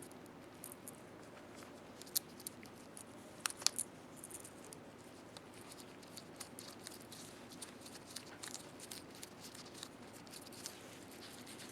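Faint, scattered light clicks and ticks of small terminal knobs and parts being handled and threaded onto the terminal posts of a lamp-socket base by hand, with a few sharper clicks about three and a half seconds in.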